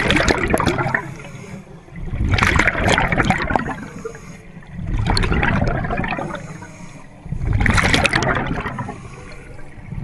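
Scuba diver breathing through a regulator underwater: a burst of bubbling, crackling exhaust about every two and a half seconds, four in all, with quieter stretches between.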